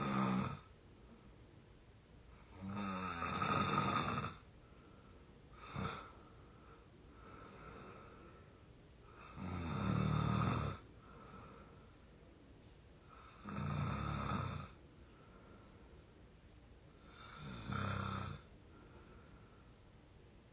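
An exhausted 22-year-old sound asleep, snoring in a steady rhythm, one loud snore about every three to four seconds, with a brief, sharper sound about six seconds in.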